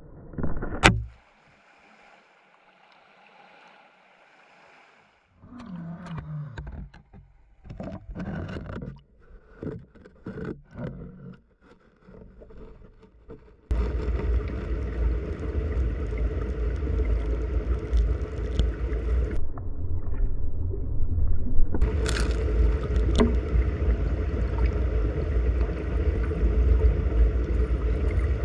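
Stream water rushing and gurgling as heard by a submerged camera: a steady, heavy low rumble that starts abruptly about 14 seconds in. Before that there is a sharp knock right at the start and scattered irregular knocks and splashes.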